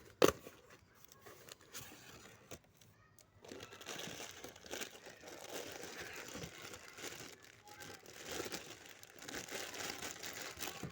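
A sharp click or knock about a third of a second in, then, from about three and a half seconds in, continuous crinkling and rustling of instant-noodle packaging being handled and opened.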